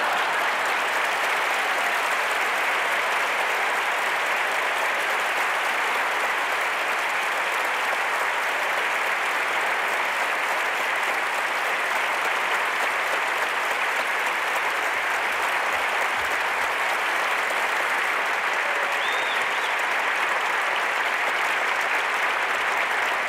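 Large concert-hall audience applauding steadily, a dense, even clapping that keeps up without letting off.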